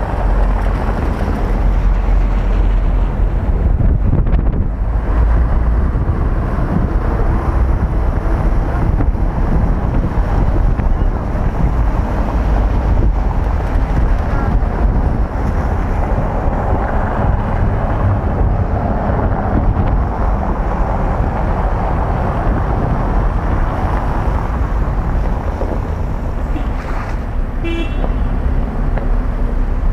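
Steady, loud low rumble of wind buffeting the microphone over street traffic. A brief high-pitched tone sounds near the end.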